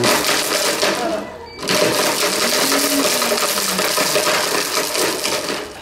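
Blendtec blender motor running at full power, grinding and churning broken plastic toy fragments in its jar. It cuts out briefly about a second and a half in, then runs again in a second, longer burst that stops just before the end.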